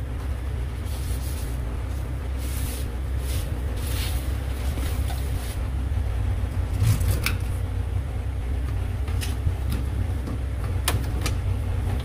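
A steady low rumble, with scattered light clicks and knocks over it.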